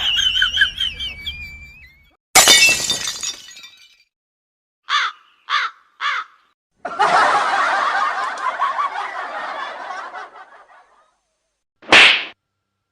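A string of separate comedy sound effects, one after another. A high warbling voice fades out, a sudden loud crash comes about two seconds in, then three short calls in quick succession, a dense noisy stretch of about four seconds that fades away, and a brief sharp burst near the end.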